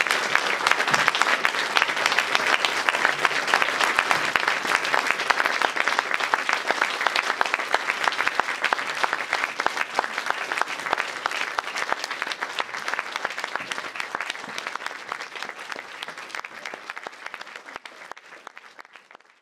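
Audience applauding, a dense stream of many hands clapping that fades away over the last few seconds.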